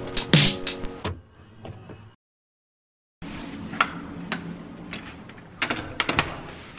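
Background music ending about two seconds in. After a second of silence, a few sharp clicks and knocks come over steady indoor room noise.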